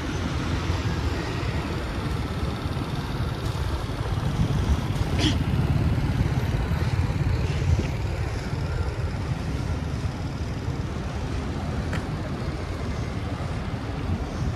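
City street traffic: a steady low rumble of cars and motor scooters going by, with a brief high squeak about five seconds in.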